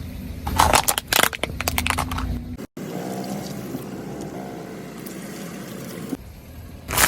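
Car tyre rolling over and crushing plastic soda bottles, with a burst of sharp cracks over the engine's low rumble. After a cut, soda pours and fizzes out for a few seconds, and another loud crush comes near the end.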